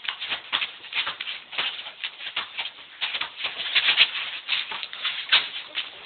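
Players' sneakers tapping and scuffing on an asphalt basketball court, a rapid irregular run of sharp taps, with a basketball bouncing among them.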